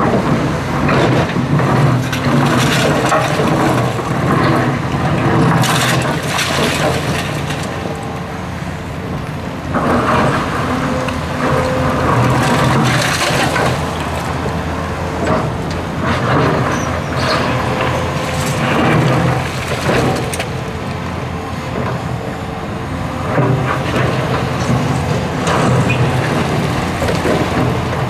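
Volvo EC480D excavator working: the diesel engine runs under load, rising and falling as it works, while the bucket scrapes and clatters through dirt and crushed concrete with repeated sharp knocks.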